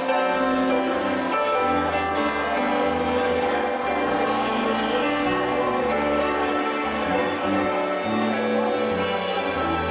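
Instrumental music, slow and steady, with long held chords over changing bass notes.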